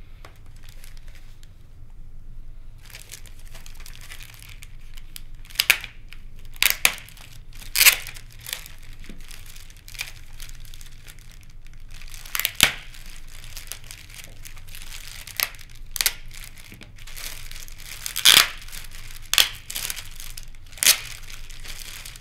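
Clear plastic packaging bags crinkling and rustling as parts are handled and unwrapped, with several sharp, loud crackles spread through.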